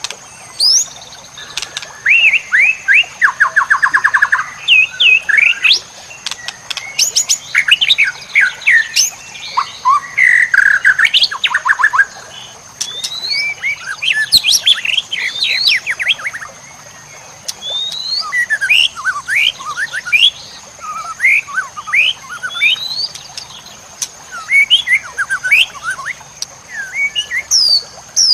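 White-rumped shama (murai batu) singing a long, varied song of quick whistles, chirps and fast trills in phrases broken by short pauses, its repertoire packed with mimicked calls of other birds. A steady high-pitched tone sounds underneath.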